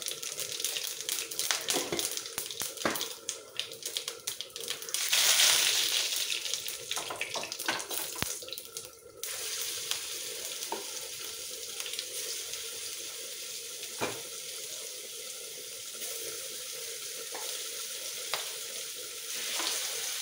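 Kitchen work at the stove: utensils clinking, then a water tap running hard for about four seconds and shut off suddenly. After that, a steady low hiss from the simmering curry pot with an occasional clink.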